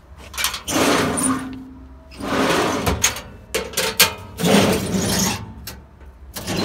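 Metal tool drawers in a service-body compartment sliding open and shut on their runners several times, with sharp clicks from the drawer latches between the slides.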